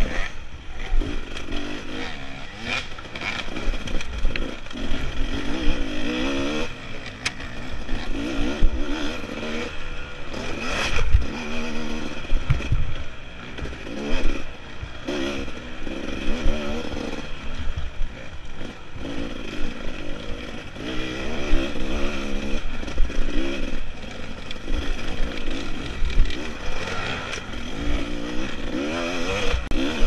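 Off-road dirt bike engine revving up and down over and over as the throttle is opened and closed, with clattering knocks from the bike over the rough trail.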